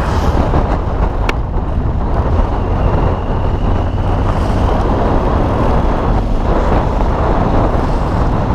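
Aprilia Tuareg 660 motorcycle underway, its parallel-twin engine running steadily under loud wind rush on the microphone.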